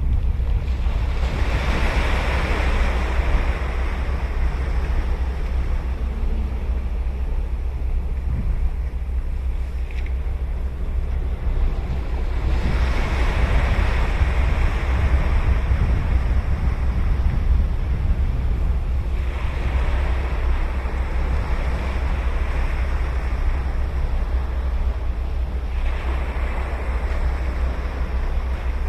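Ocean waves breaking and washing up a beach, four surges roughly every six to seven seconds, over a steady low rumble of wind on the microphone.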